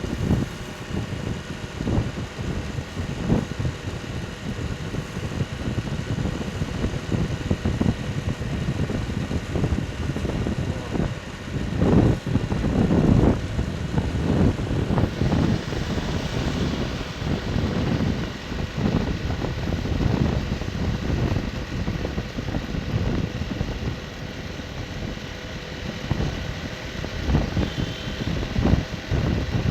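Wind buffeting the microphone on a moving motorcycle, an uneven low rumble in gusts over engine and road noise, strongest about twelve seconds in.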